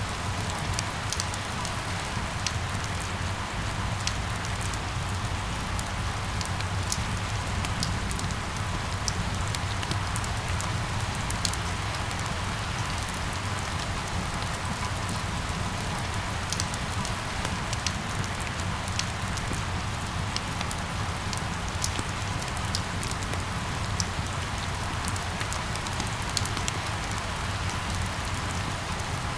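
Steady rain falling, with scattered sharp drop ticks and a low steady rumble underneath.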